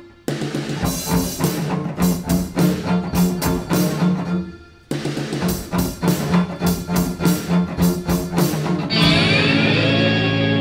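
Background music with a steady beat that breaks off briefly twice. Near the end the beat gives way to a held, swelling passage.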